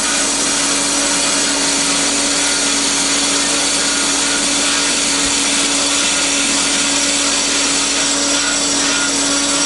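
Cosen C-320NC double column bandsaw running with its blade cutting through the workpiece during an automatic cycle: a steady hum under an even hiss.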